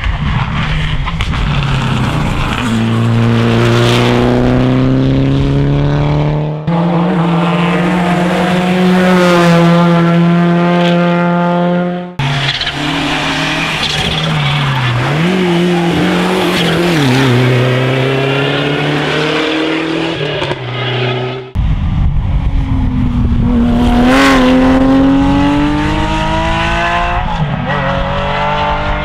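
Rally cars driven hard on a stage, in four short cuts. The engines climb in pitch under full throttle and change gear, and the revs dip and rise again as the cars lift off and brake for corners.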